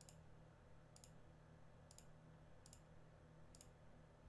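Faint computer mouse clicks, about one a second, some as quick double clicks, over a low steady hum: objects being picked one after another to attach them in a 3D modelling program.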